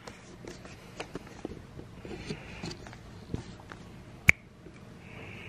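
A Pomeranian sniffing and nosing right at the camera: short sniffs with scattered small clicks of its nose and fur against the camera, and one sharp knock about four seconds in.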